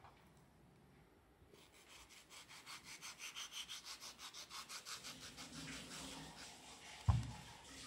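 Chef's knife sawing back and forth through a hand-held peeled mango, a quick, even run of rubbing strokes about five a second, faint. A single dull thud near the end.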